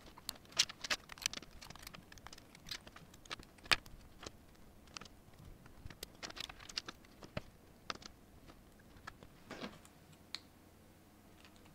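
Small hard-plastic clicks and snaps of 3D-printed figure parts being broken off a printed kit card and pressed together, irregular and closely spaced, thinning out after about eight seconds. A brief scraping rub of plastic comes about nine and a half seconds in.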